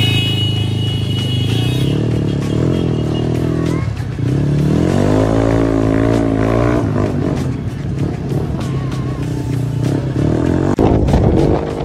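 Motor scooter engine running as it is ridden along the road, with background music playing over it.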